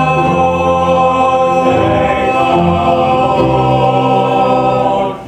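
A chorus of voices singing long held chords, the chord moving a couple of times, then cutting off together just before the end.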